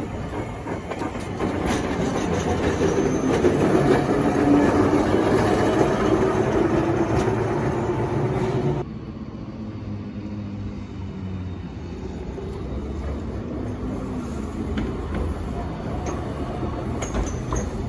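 Hiroshima streetcar number 704 running over the street track, a rumble that swells to its loudest about four to six seconds in. Near the middle it cuts off suddenly to the quieter, steady running of a modern low-floor articulated tram passing.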